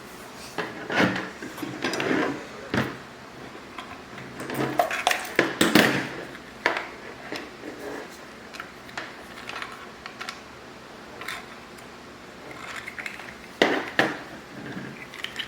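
Hard objects being handled: irregular knocks, clicks and rattles, loudest around six seconds in and again near fourteen seconds.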